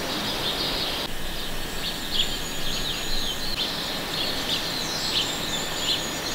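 Small birds chirping, many short quick calls repeating irregularly over a steady outdoor hiss.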